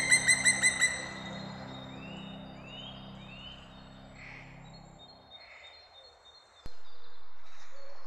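Black woodpecker giving a rapid series of ringing calls, about four a second, that stops about a second in; fainter, scattered bird sounds follow.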